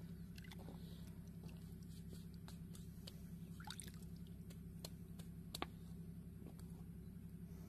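Faint wet squishing and dripping with scattered small clicks, as pieces of oilseed-cake carp bait (küspe) are handled while soaking in garlic-and-corn water, over a steady low hum.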